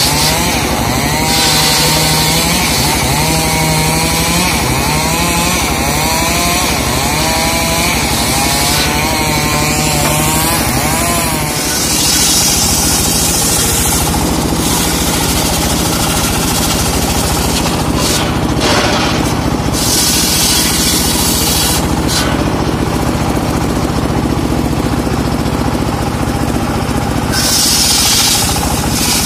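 Homemade circular sawbench ripping rain tree (trembesi) logs, its motor running loud and steady. For the first dozen seconds its pitch dips and rises repeatedly as the blade takes the load, then it steadies. Three bursts of high hiss come as the blade cuts through the wood.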